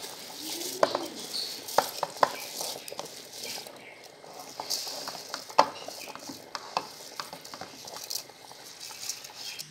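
Raw rice being pushed by hand from a steel bowl into a steel pot of boiling water, with scattered clicks and knocks of the metal bowl against the pot over a steady hiss from the boiling pot.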